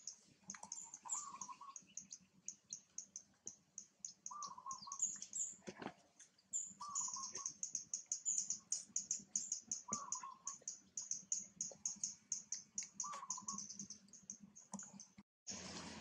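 Background birds calling: a rapid, high chirping keeps going, and a short, lower warbling call comes about every three seconds, five times. Near the end the sound drops out briefly and comes back as a louder hiss.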